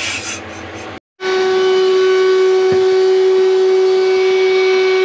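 Handheld power tool's motor running at a constant speed, giving a loud, steady high whine. It starts after a short hissing noise that cuts off about a second in.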